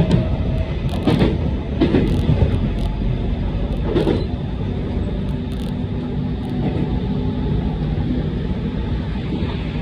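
JR Central 313 series electric train running, heard from the driver's cab: a steady rumble of wheels on rail with a low motor hum, and a few loud clunks of the wheels on the track in the first four seconds.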